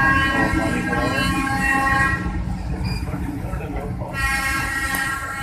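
Train horn sounding in two long blasts, the first ending about two seconds in and the second starting about four seconds in, over the steady rumble of the train running on the rails.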